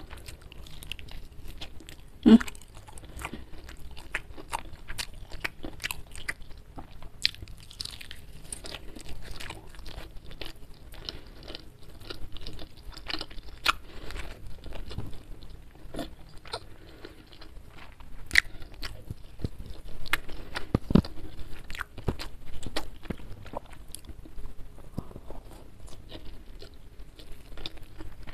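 Close-miked mouth sounds of a person eating fried chicken and rice by hand: biting, crunching and chewing, with many small sharp clicks throughout and a few louder bites.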